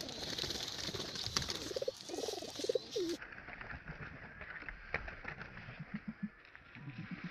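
Domestic pigeons cooing, a run of rising-and-falling coos in the first three seconds, then lower, fainter coos near the end.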